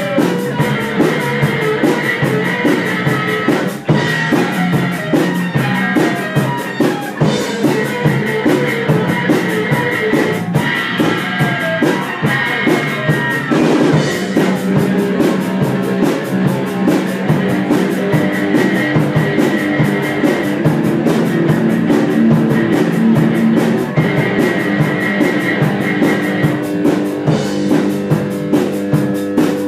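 Live rock band playing an instrumental stretch: electric guitar over a steady drum-kit beat, with no singing.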